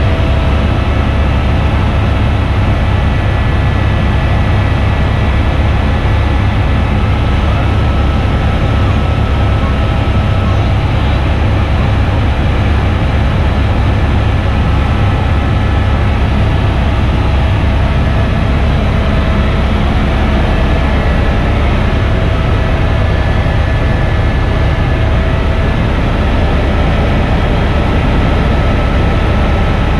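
Tour helicopter in flight, heard from inside the cabin: a loud, steady drone of rotor and engine, with a strong low rumble and a few faint steady whining tones above it.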